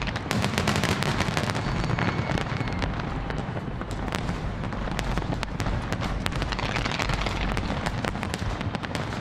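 A large fireworks display: a continuous barrage of shells bursting, with dense overlapping bangs and crackling over a low rumble.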